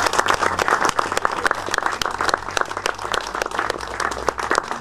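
A small group of people applauding, many overlapping hand claps at a steady level.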